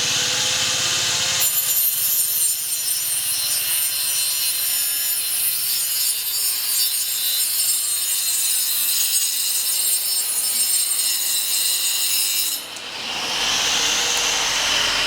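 Homemade cordless cutter's 775 DC motor spinning its blade, cutting into 10 mm plywood from about a second in for about eleven seconds with a dense, high-pitched rasping. Near the end the blade leaves the cut and the motor runs free, its whine rising back up to speed.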